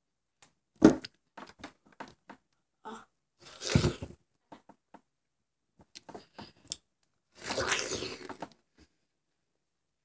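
Biting into and chewing watermelon flesh, mouth straight onto the slice: short wet clicks and two longer bursts of eating noise, around four and eight seconds in. A sharp knock about a second in is the loudest sound.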